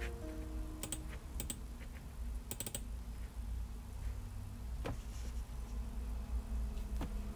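A few light, sharp clicks and taps, including a quick cluster about two and a half seconds in, over a low steady hum.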